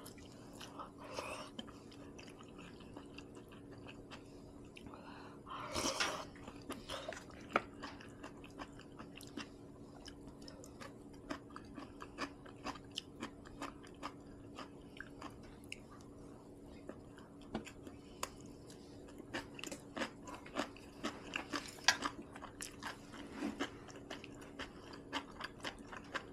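Close-miked mouth sounds of someone eating a meal of seaweed soup, rice and kimchi: steady chewing and biting with many small, sharp clicks and some crunch. A louder, noisier sound lasting about half a second comes about six seconds in.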